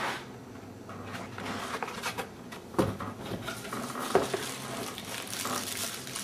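A cardboard speaker box being opened and its packed contents handled: rustling and scraping, with sharp knocks about three and four seconds in.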